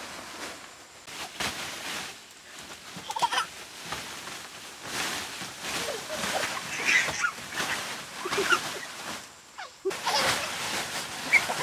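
Woven plastic tarpaulin rustling and flapping as it is shaken out and spread, with short high-pitched calls now and then.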